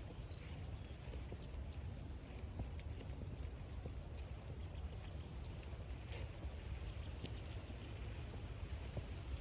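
Rainy forest trail ambience: a steady low rumble with scattered light ticks and footfalls on the wet trail, and faint high chirps now and then.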